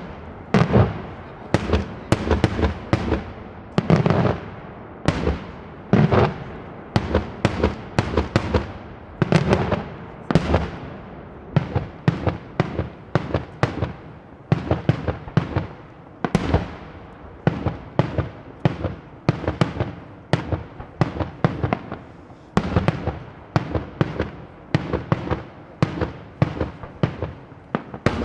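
Daylight fireworks display: a rapid, continuous barrage of aerial shell bursts and firecracker reports, several sharp bangs a second, each ringing out with an echo.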